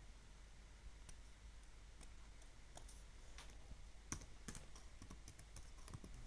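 Faint, irregular clicking from a laptop, the clicks coming more often in the second half.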